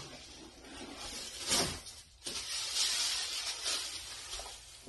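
Packing paper rustling and crinkling as a white flat-pack furniture panel is pulled out of its cardboard box. There is a sharp rustle about one and a half seconds in and a longer, denser stretch of it from just past two seconds.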